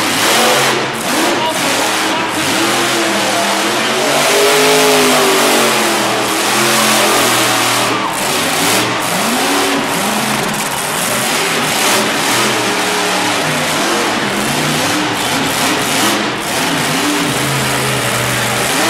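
Monster truck engine revving hard in repeated surges, its pitch rising and falling as the truck accelerates and turns in the dirt.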